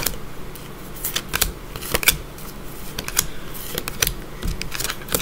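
Cards from a new Mystical Manga Tarot deck being flipped through one at a time and laid onto a pile. Each card makes a short paper snap or slap, at an uneven pace of about one or two a second.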